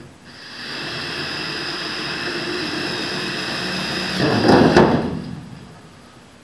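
Cordless drill running steadily while drilling out a centre hole to a quarter inch in an aluminium aircraft wing skin. About four seconds in it turns louder and rougher for under a second, then stops.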